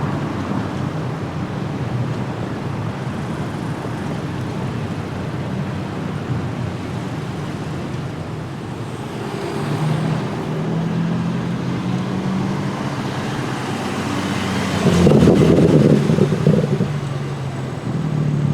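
Street traffic with cars driving past: a steady road hum, a low engine note coming in about ten seconds in, and a louder car passing close about fifteen seconds in.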